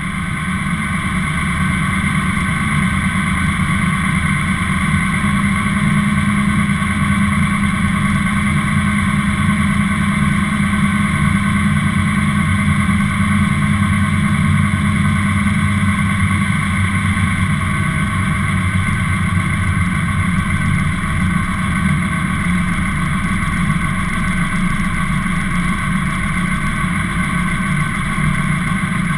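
Classic car's engine running steadily as the car rolls slowly, picked up close by a camera mounted on its hood.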